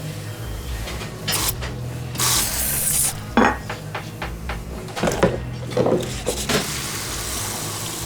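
Dishes, pans and utensils clattering in a restaurant kitchen, with a hissing burst about two seconds in and a steady low hum underneath.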